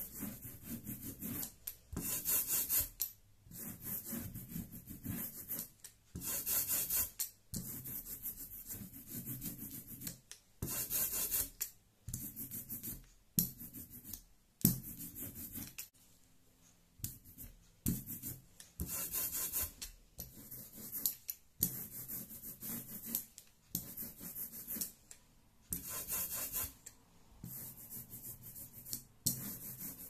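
Hand brayer rolled back and forth over an inked linoleum block, making a rasping hiss on each pass. The passes repeat, about one every second or so, with short gaps between them.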